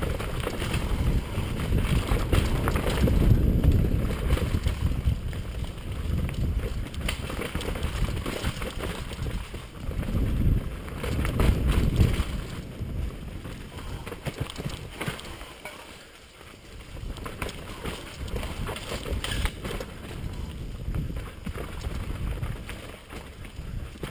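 Mountain bike riding down a rough dirt trail: tyres rolling over roots and rocks, with the bike rattling and clattering and wind buffeting the microphone. The rumble is loudest about two to four seconds in and again around ten to twelve seconds, and eases briefly around sixteen seconds.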